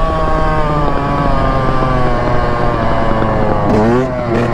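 Dirt bike engine holding steady revs that sag slowly while the bike is held up on a wheelie. Near the end it revs up sharply, then blips up and down.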